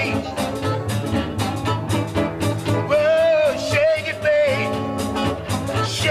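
Live blues performance: a wailing lead line that bends in pitch over strummed guitar, bass and a steady beat.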